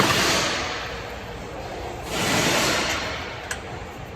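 Swelling bursts of hiss, each about a second and a half long and about two and a half seconds apart, with a short click near the end.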